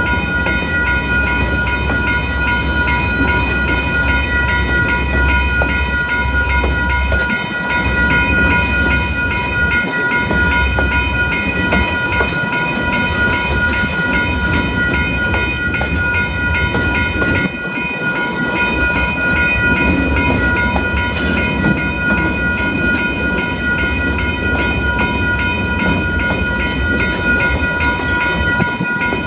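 Freight train of log-laden flat wagons rolling slowly past close by: a low rumble and steady wheel noise with occasional clicks of wheels over rail joints, under a steady high ringing of several tones held throughout.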